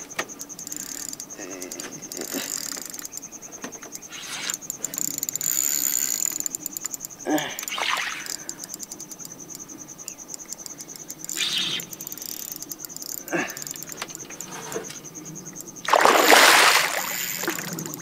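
A hooked king barbus splashing at the surface beside the boat for over a second near the end, after a few shorter splashy bursts earlier. A steady, high-pitched insect buzz runs underneath.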